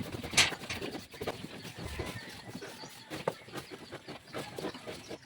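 A sow and her newborn piglets in the pen, making scattered short animal noises, with one sharper, louder sound about half a second in.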